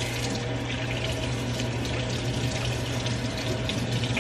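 Tap running steadily into a sink, with water splashing as something is rinsed under it.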